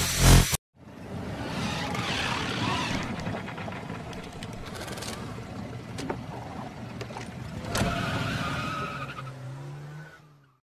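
Cartoon sound effects of a small vehicle driving and skidding, with a few sharp clicks and a rising motor hum near the end. Loud electronic music cuts off in the first half-second.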